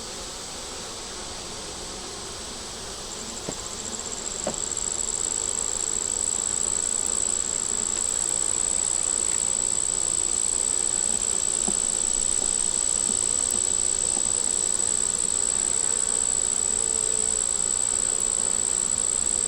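A steady, high-pitched insect trill starts faintly about three seconds in and grows louder, then holds even. Under it is the hum of honeybees around an opened hive.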